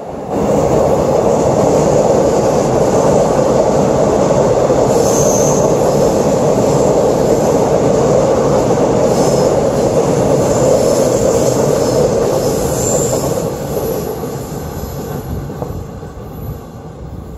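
Line 1 commuter electric train passing along the tracks: a steady loud rolling rumble of wheels on rail with a few brief high squeals, fading from about thirteen seconds in as it draws away.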